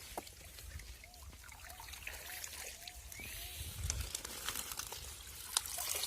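Water trickling and splashing in a fish tank, with scattered small splashes and drips.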